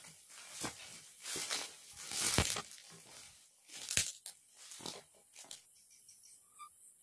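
Dry grass and brush crunching and rustling under footsteps and against the body, in uneven strokes that die away about two-thirds through, leaving faint insect chirps.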